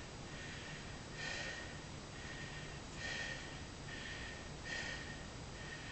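A man breathing hard in short, forceful breaths through the nose, about one a second, from the strain of bending a steel bar by hand.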